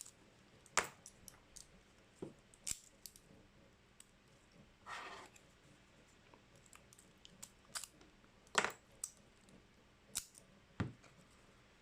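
Lock pick and tension tool working inside a padlock's keyway: faint, irregular metallic clicks and a short scrape, with a louder click about two-thirds of the way through.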